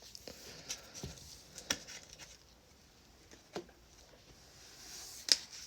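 Faint, scattered soft clicks and flicks of trading cards being handled and slid apart from a pack.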